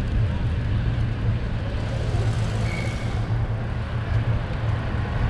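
Steady low rumble of wind on a bicycle-mounted camera's microphone while riding along a city street, mixed with traffic noise. A hiss swells and fades about two to three seconds in.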